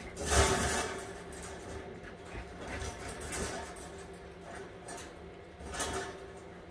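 Eight-week-old Siberian husky puppies play-fighting on a tile floor: paws and claws scrabbling and bodies scuffling in uneven bursts. The loudest comes just after the start and another near the end.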